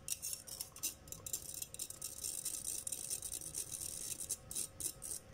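A metal fork scraping and pressing lemon pulp against a small fine-mesh stainless steel sieve to strain out the juice. The sound is a quick, irregular run of scratching strokes.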